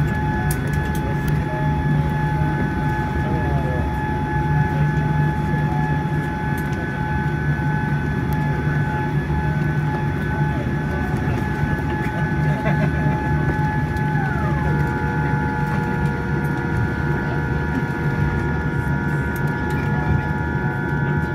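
Cabin noise inside a Boeing 787-10 on the ground just after landing: a steady low rumble with a whine on top that drops in pitch about fourteen seconds in.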